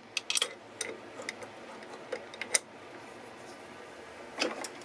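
Wrenches clicking and clinking against a steel lathe chuck and its nut as the chuck is tightened onto the mandrel: scattered sharp metal taps, a handful over a few seconds.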